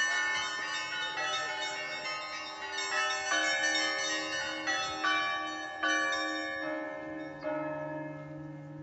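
Cathedral bells of a Russian Orthodox belfry rung by hand, several bells of different pitch struck in an irregular rhythm with long overlapping ringing. The strikes stop about 7.5 seconds in and the bells ring on and die away.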